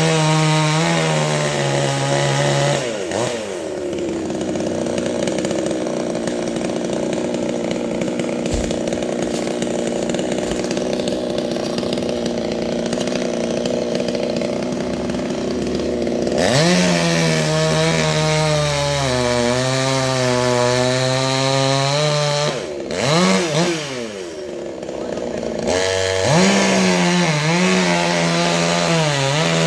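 Petrol chainsaw cutting a coconut tree trunk. The engine revs high and wavers at the start, again from about halfway to three-quarters through, and near the end, with a long steadier stretch in between.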